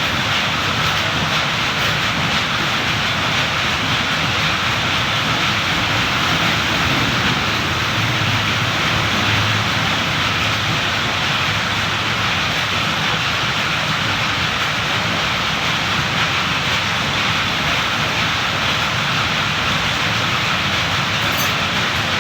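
Gas welding torch flame hissing steadily, an even rushing noise that does not change.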